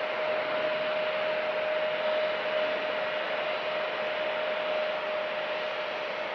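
Airbus A320neo's Pratt & Whitney geared turbofan engines at taxi idle: a steady rushing noise with one steady mid-pitched tone running through it.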